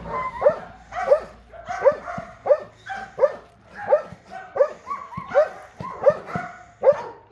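Belgian Malinois barking in a steady run of sharp barks, about one and a half a second, at a decoy waving a bite pillow in front of her in protection (bite-work) training.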